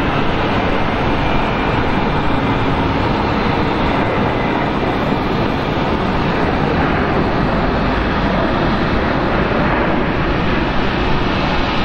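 Jet airliner engines running, a loud, steady, even noise with no distinct tones, from an Airbus A320-family jet on the runway.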